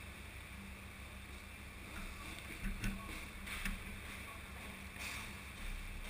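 Kawasaki W650's air-cooled parallel-twin engine idling with a steady low rumble, with a few sharp clicks about three seconds in.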